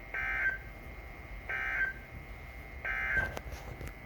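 Emergency Alert System end-of-message data tones: three short bursts of shrill digital warbling, about 1.3 seconds apart, signalling the end of the alert.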